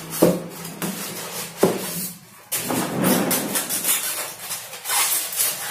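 Polystyrene foam packing rubbing, scraping and knocking as a small loudspeaker in its foam insert is lifted out of a foam box, with a couple of sharp knocks near the start.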